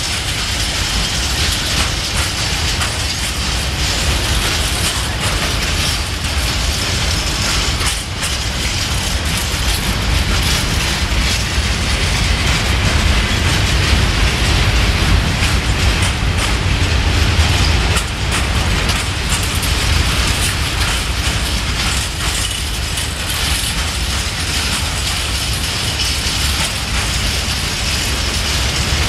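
Freight train of covered hopper wagons rolling past close by: a steady loud rumble with metallic rattling and clatter of the wheels over rail joints.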